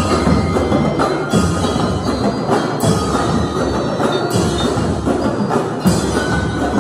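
A drum and lyre corps playing live: marching drums with bell lyres and mallet percussion, sharp accented hits about every second and a half.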